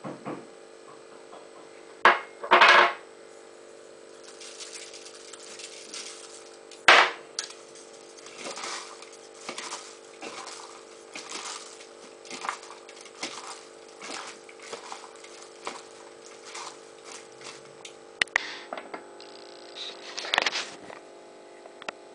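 Wooden chopsticks tossing a cabbage and wakame salad in a glass bowl: short rustling, clicking strokes roughly once a second. There are a few sharp knocks against the bowl around two, three and seven seconds in, all over a faint steady hum.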